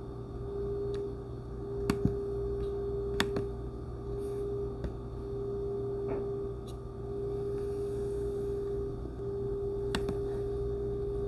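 A steady held tone like a soft ambient drone, swelling and dipping slightly about once a second over a low hum, with a few sharp clicks about two, three and ten seconds in.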